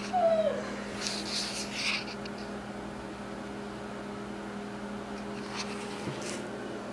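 A felt-tip marker scratching on paper for about a second, near the start, over a steady low electrical hum in a small room. A short falling squeak comes just before the scratching, and a couple of faint ticks come near the end.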